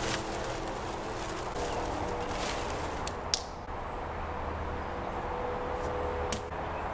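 Footsteps and rustling in dry leaf litter as a person moves about handling tarps and branches, with two sharp knocks, about three and six seconds in, over a faint steady hum.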